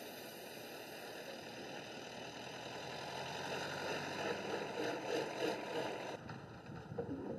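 Trucks driving past, a noisy rumble that swells about four to six seconds in, then drops away sharply just after six seconds.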